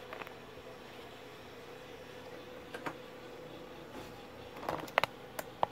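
A few light clicks and taps from handling on the workbench, a sharp one at the start and a quick cluster about five seconds in, over a faint steady hum.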